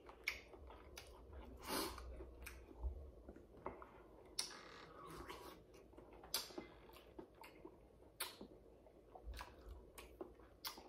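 Mouth-close eating sounds: soft wet chewing and lip smacks, mixed with scattered little clicks and crackles as boiled shellfish shells are peeled by hand.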